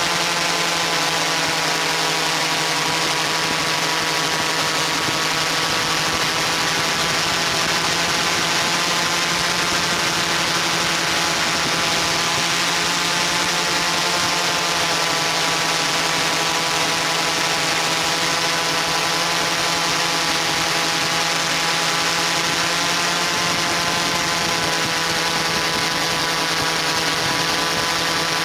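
Multirotor camera drone's motors and propellers whining steadily in flight, a dense cluster of pitches that drift slightly up and down.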